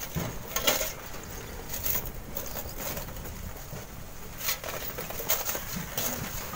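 Hoe scraping and digging into loose sand and stones, in irregular strokes a second or more apart.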